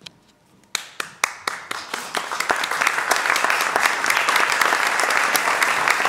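Theatre audience applauding: a few scattered claps about a second in, quickly swelling into full, steady applause.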